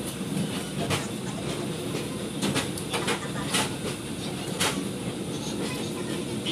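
Passenger train running, heard from inside the coach: a steady low rumble of the wheels on the track, broken by a scatter of short, sharp clacks, several of them close together in the middle.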